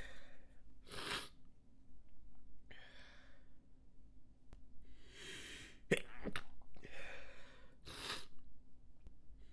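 A person stifling sneezes: a few short, sharp, held-back sneeze bursts spread over several seconds, with breathy intakes between them.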